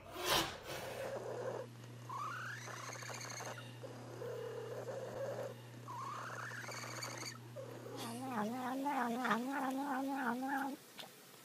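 A brief thump at the start, then a cat's high-pitched purr as a steady hum with two rising chirps. About eight seconds in, a cat makes a wavering, pulsing mewing "nom-nom" sound as it eats from a spoon.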